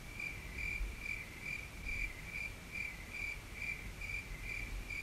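A cricket chirping: evenly spaced short, high chirps, a little over two a second.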